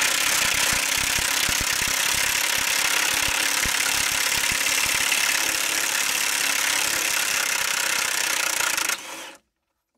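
Milwaukee cordless impact wrench hammering steadily on a seized 15/16-inch bolt, trying to back it out, then stopping suddenly near the end. The bolt is stuck fast: it later took heat from a torch before it would even start turning.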